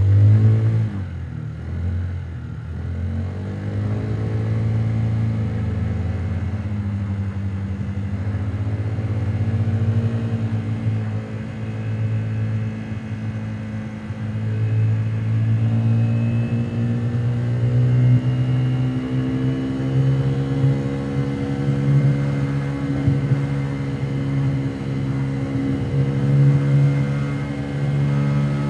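Honda Today 50 cc scooter's single-cylinder four-stroke engine while riding, heard from inside its under-seat storage compartment. The engine note drops over the first couple of seconds, then rises slowly and steadily for the rest.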